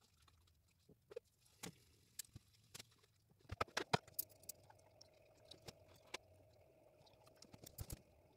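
Faint, irregular clicks and ticks, a cluster of sharper ones about halfway through and again near the end, over a faint steady hum that comes in partway through.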